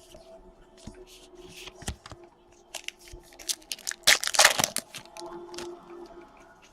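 Trading-card pack wrapper being crinkled and torn open: a run of small crackles and clicks, with the loudest tear about four seconds in.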